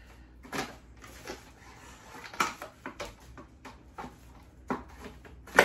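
Plastic cling wrap crinkling and rustling as a sheet is pulled off the roll in its box, in a string of short crackles, with one sharp snap near the end.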